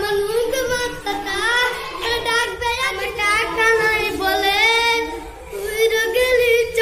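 A young boy singing without accompaniment: a melodic line of long held notes that bend and waver in pitch, with a short breath break about five seconds in.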